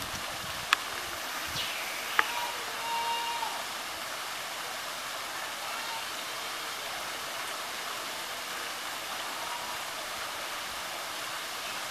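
Steady rush of water pouring into a pool, with two sharp clicks in the first few seconds.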